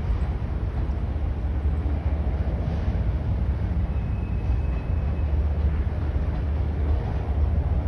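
Steady low rumble of a Union Pacific freight train rolling, with a faint high tone for about a second midway.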